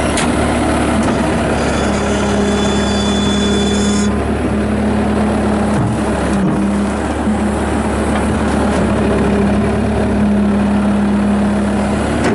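Bobcat S250 skid steer's Kubota turbo diesel engine running steadily, with a high whine from about two to four seconds in that cuts off sharply.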